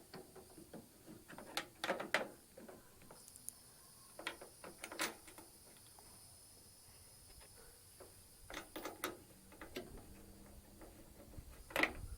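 Scattered light clicks and knocks of plastic and metal parts being handled as a replacement inside door handle is fitted to a Ford Transit sliding door's lock cables, coming in several short clusters.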